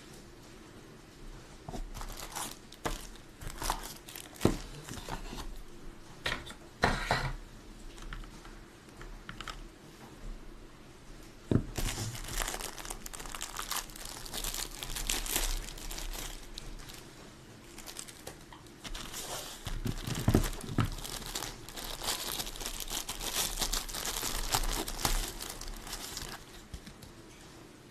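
Crinkling and rustling of handled material, with scattered sharp clicks and knocks; sparse at first, then busier about twelve seconds in.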